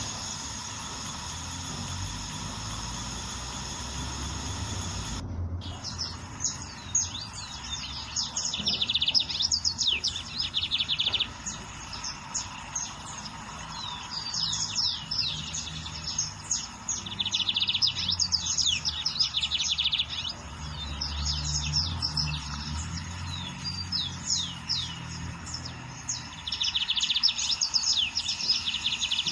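Lined seedeater (bigodinho) singing: phrases of quick chirps and sliding whistles, each run ending in a fast buzzy trill, heard about three times. The sound briefly drops out about five seconds in.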